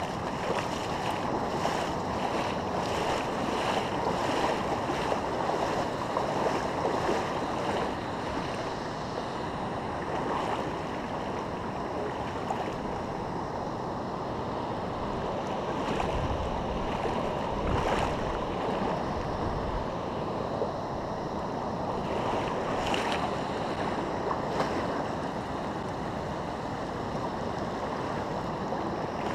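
Steady rush of a river's flowing water, with a few low wind buffets on the microphone around the middle.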